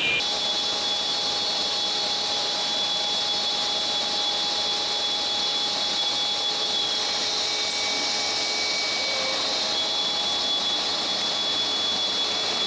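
Woodworking tenoning machine (tenonneuse) running with its saw and cutter heads spinning: a steady, high-pitched whine over even machine noise.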